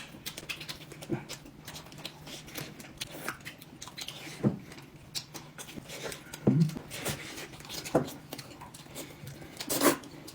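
Close-up eating sounds: a person chewing food, with many short scattered clicks and a few brief low mouth noises.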